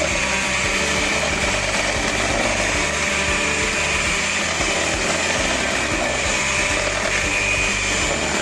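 Electric beater running steadily on low speed, beating raw eggs in a bowl, with a constant motor whine.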